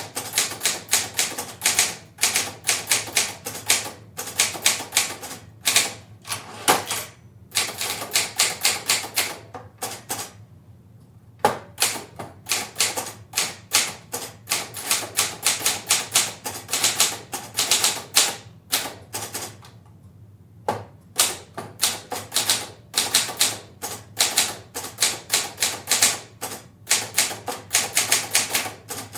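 Portable typewriter typing at a medium pace, heard from a distance in a live, reverberant room: runs of key strikes, several a second, broken by a few short pauses.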